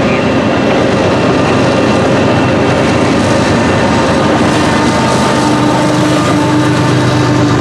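Freight train of empty grain cars rolling past with steady, loud wheel-and-rail noise. A steady low drone joins about halfway through.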